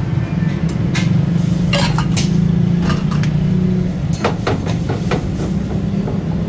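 Metal ladle knocking and scraping against a steel wok as pasta is stirred and tossed in a cream sauce, a dozen or so sharp clinks with a quick run of them about four seconds in. A steady low hum runs underneath throughout.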